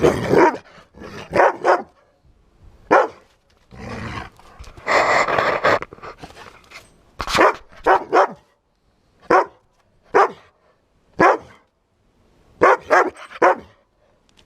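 A dog barking in short bursts, singly and in quick pairs and threes, during play, with a longer rough stretch about five seconds in.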